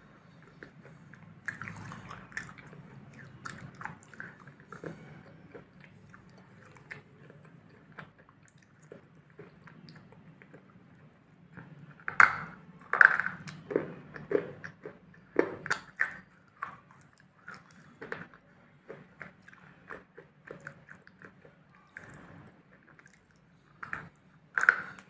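Close-up biting and chewing of a dark black, powdery block with a thin crunchy outer layer: sharp crunching bites between softer chewing, loudest in a cluster about halfway through and again near the end.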